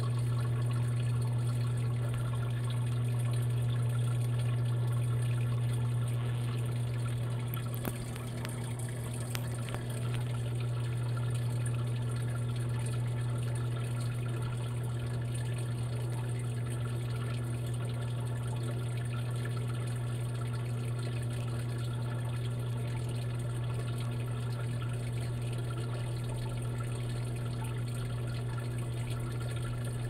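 Insignia washing machine running a quick wash cycle: a steady low hum with the sound of water moving inside it, dipping briefly about eight seconds in.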